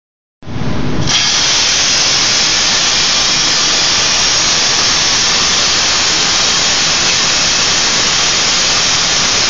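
Cutting torch on an orbital pipe-cutting carriage cutting through a 10-inch steel pipe: a brief low hum about half a second in, then a steady, loud hiss of gas and cutting.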